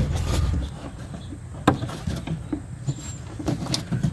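Light handling noise inside a pickup's door shell with one sharp click about a second and a half in, as the clasps holding the window glass are worked loose.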